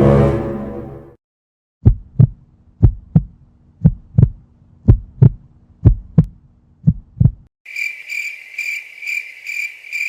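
Heartbeat sound effect: six double thumps, lub-dub, about one a second, after a swelling low sound fades out about a second in. About 7.5 s in it gives way to a cricket chirping sound effect, a high chirp pulsing about three times a second, the stock cue for an awkward silence.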